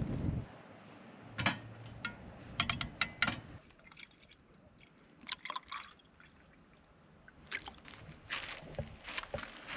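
Tomato soup being poured out, the liquid splashing and trickling in spurts, with sharp clicks from handling its container.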